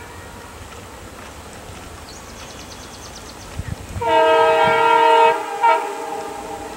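WDP4D diesel locomotive's horn: one long blast starting about four seconds in, then a short second toot.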